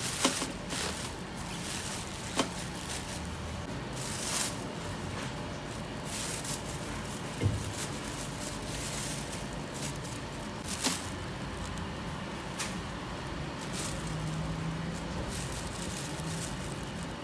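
Plastic bags rustling and crinkling as chopped herbs are handled and packed, with a few short sharp crackles and knocks scattered through, over a steady background noise.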